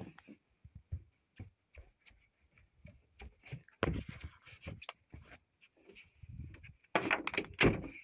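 Scattered knocks and thumps from someone walking about and handling a phone, with a door being opened: a louder stretch of noise about four seconds in and a quick run of knocks near the end.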